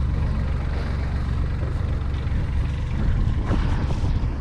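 Universal M25-XPA three-cylinder marine diesel running steadily after a fresh start. Raw cooling water is coming out with the exhaust, a good sign that the raw-water cooling system is working.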